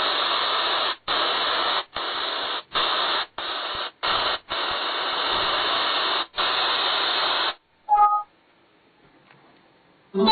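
JBL Charge 2+ portable speaker putting out a loud static-like hiss that is cut by several short gaps and stops about seven and a half seconds in. Then a short two-note beep sounds from the speaker, and another short chirp comes at the very end.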